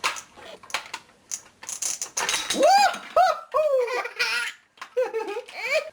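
Light clicks and knocks of plastic toy food and knife pieces, then a toddler's high-pitched babbling vocal sounds that rise and fall, in two stretches.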